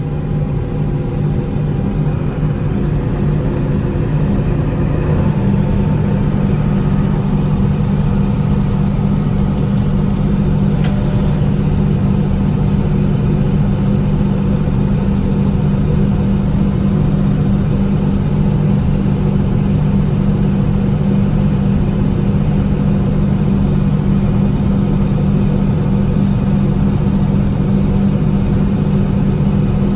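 John Deere 4400 combine running steadily under load while unloading corn from its grain tank, its engine hum settling into a stronger, steady tone about five seconds in.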